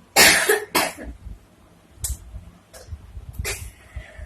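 A woman coughing: two loud coughs right at the start, then a few fainter, shorter coughs.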